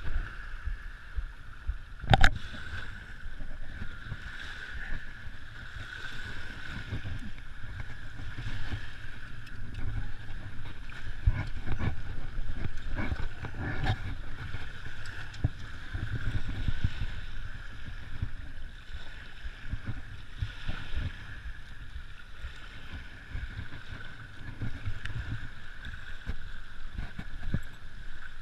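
Muffled wind rumble and small waves lapping on a sandy shore, mixed with handling knocks and rustling close to the camera. There is one sharp knock about two seconds in and a steady faint high hum throughout.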